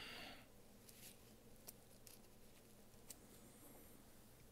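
Near silence: room tone, with a few faint, small clicks.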